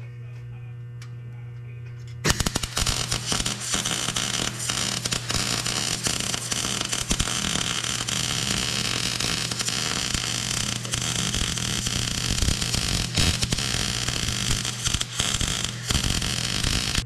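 A steady electrical hum, then from about two seconds in a MIG welder's arc crackling and sizzling without a break as a weld is run along a car's steel frame rail. The hum carries on under it.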